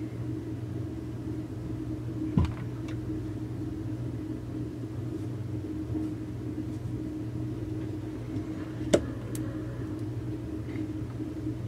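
Steady low background hum with two sharp clicks as small chainsaw parts are handled on the workbench; the louder click comes near the end, as a rubber anti-vibration mount is pressed into the crankcase.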